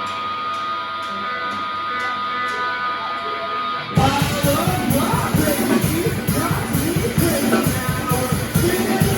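Rock band playing live: a guitar intro of held, ringing notes, then about four seconds in the drums and full band come in loud with a steady beat.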